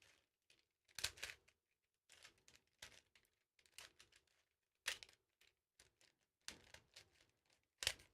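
Plastic clacks of a 1981 Rubik's Cube's layers being turned by hand, in short irregular turns about every half second to a second, during the last moves of a solve.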